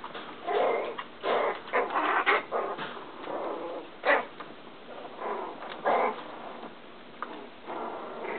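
Yorkshire terrier puppies vocalising at play, in short irregular bursts of yips and barks.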